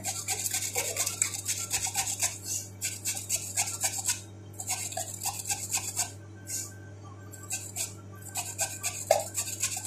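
Carrot being grated on a flat metal hand grater: runs of rapid scraping strokes, broken by short pauses about four, six, seven and eight seconds in. A steady low hum lies underneath.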